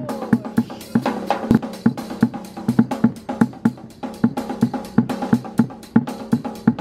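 Street drummer's kit of drums and cymbals played to a fast, steady beat over a pitched backing line.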